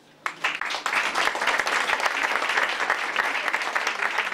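Audience applauding, breaking out a moment in and going on steadily.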